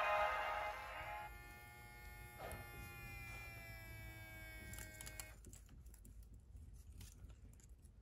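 Applause animated dancing monkey plush: its song stops about a second in, then its small toy motor whirs faintly, the pitch sinking slowly, for about four seconds before cutting off.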